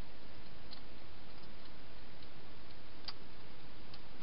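Wild hedgehog eating inside a plastic feeding box: scattered small crunching clicks as it chews, with one sharper click about three seconds in.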